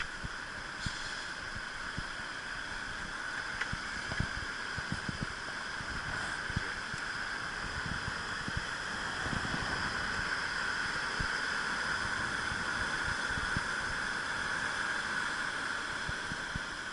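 Swollen river after a typhoon rushing in a steady roar of water, with irregular low thuds of wind buffeting the microphone.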